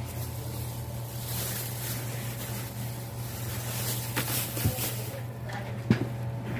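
Steady low machine hum, with a few light taps and clicks near the end, the sharpest just before the end.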